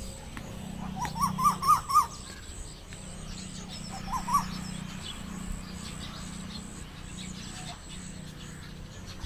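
A bird calling: a quick run of about five short notes, each rising and falling, climbing in pitch and getting louder, about a second in. Two more such notes follow about four seconds in.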